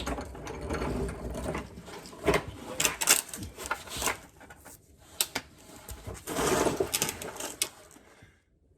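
Hand tools working on the metal of a truck's rear axle: irregular metallic clicks, clinks and rattling, with a denser stretch of scraping or rattling about two-thirds of the way through.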